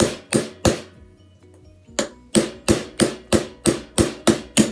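Hammer striking a steel pin punch to drive out the retaining pin of an SKS rifle bolt. Three quick strikes, a pause of about a second, then a run of nine strikes at about three a second, each with a short metallic ring.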